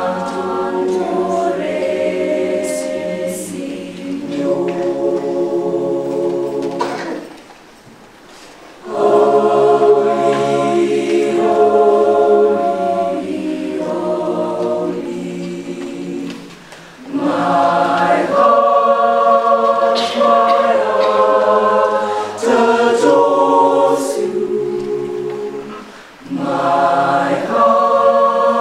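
A mixed school choir of boys and girls singing in several-part harmony, in long held phrases with short breaks between them, the longest gap about seven seconds in.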